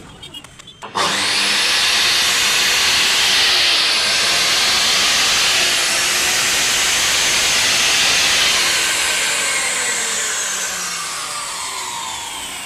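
A 14-inch chop saw's electric motor switched on about a second in, spinning up to a loud, steady high whine, then let go and winding down with falling pitch near the end. It is a test run after fitting new coil springs in place of the burnt brush holders.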